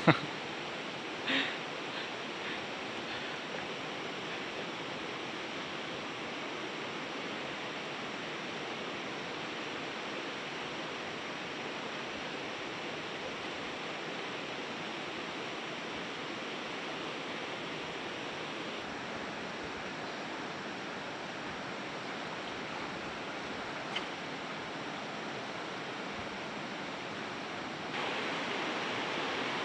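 Steady rushing of a shallow, fast-flowing river running over rocks and riffles, growing louder near the end.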